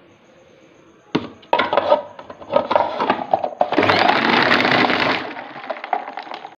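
Electric food chopper crushing ice cubes in a milkshake mixture: from about a second in, sharp cracks and clattering of ice against the blades, then a dense, steady grinding for about a second and a half that tails off near the end.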